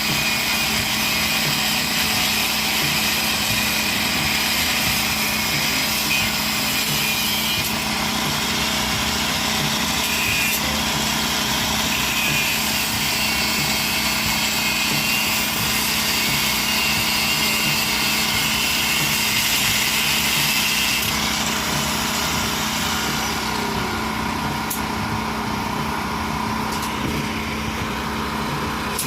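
Small engine running steadily at a constant speed, with a noisy upper layer that eases a little about three-quarters of the way through.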